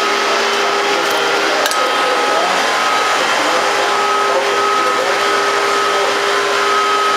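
Loud, steady machinery noise of a yacht's engine room: an even rush with a constant low hum and a higher whine, unchanging throughout.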